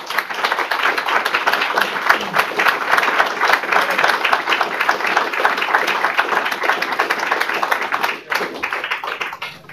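Audience applauding: a dense patter of many hands clapping that starts at once, dips briefly about eight seconds in and tails off near the end.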